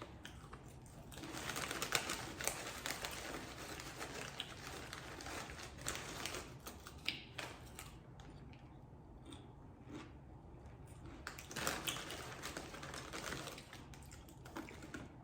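Close-up chewing of a crunchy snack: rapid, irregular crunches that thin out for a few seconds about eight seconds in, then pick up again.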